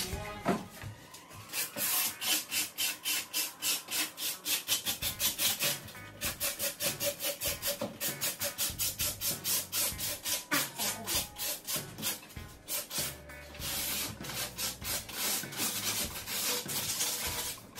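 Hand-held sanding block rubbed back and forth over a wooden credenza's old finish, in quick strokes about four a second, with a short break near six seconds and smoother, steadier rubbing near the end. It is a light scuff-sanding of the finish to prepare it for paint.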